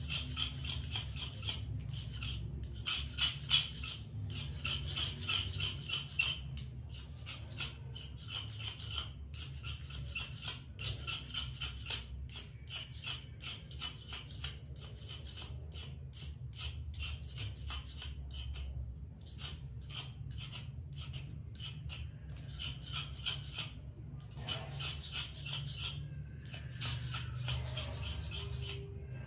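A blade scraping along a thin bamboo kite spine, shaving it thinner in many short, repeated strokes with brief pauses.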